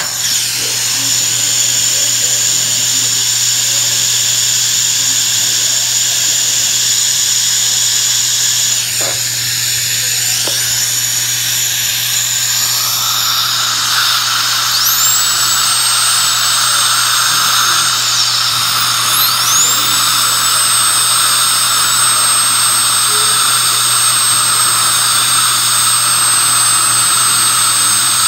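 Dental suction hissing steadily, with a high-speed dental handpiece that whines up to a high, steady pitch about halfway through, stops a few seconds later, then spins up again and keeps running.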